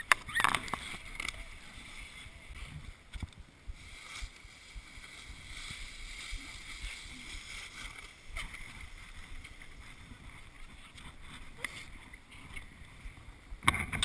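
Steady scraping hiss of a ride sliding over packed snow, with a few sharp knocks near the start and a louder clatter near the end.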